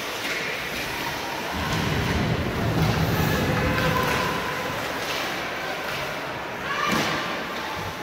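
Basketball gym ambience: scattered voices echoing in the hall, with a low rumbling thud lasting a couple of seconds and a short sharp knock near the end.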